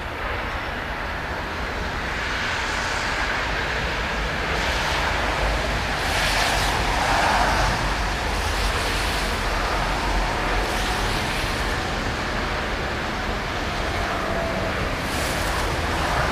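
Hamburg Hochbahn DT2 U-Bahn train pulling out and running along the track toward the listener, a steady rumble growing louder. Several brief high hissing surges come through as it runs.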